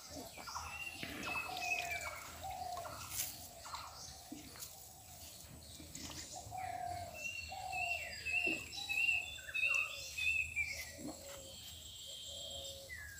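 Birds calling: many short, slightly falling whistled notes at a lower and a higher pitch, busiest in the second half.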